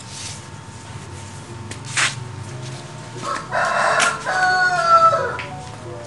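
A rooster crowing once, a long call starting a little past three seconds in that bends down in pitch at its end.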